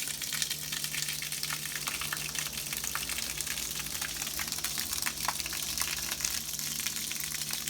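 Bleach water gushing steadily out of the open drain valve of a Maxant honey extractor tank and splashing, with a constant patter of spatter, over a low steady hum.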